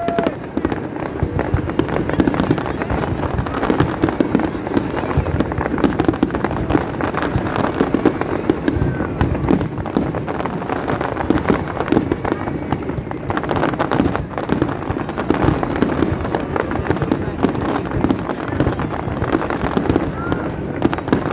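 Fireworks display going off in a dense, continuous barrage of crackling and popping bursts, with a brief rising whistle now and then.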